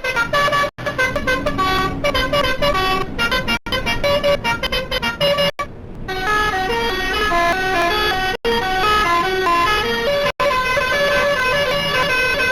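Indonesian bus 'telolet' multi-tone horns (basuri horns) playing a tune of short stepped notes that change pitch rapidly. The horn melodies break off abruptly several times, with a short lull near the middle before a different tune starts.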